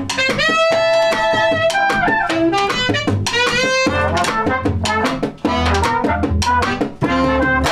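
A small jazz combo playing an instrumental mambo break: trumpet, trombone and saxophone over upright bass and a snare drum.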